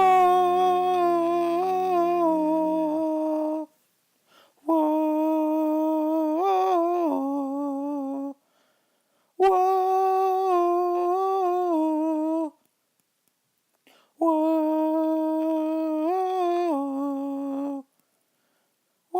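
Anaheim Ducks hockey goal horn blasting: four long blasts of about three to four seconds each, a second or so apart, with the pitch bending briefly partway through the later ones and a fifth blast starting at the very end.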